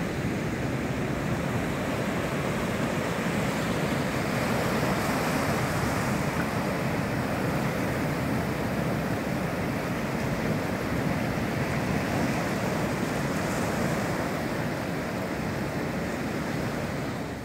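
Surf from a big sea breaking and washing up a sandy beach in a steady wash of noise.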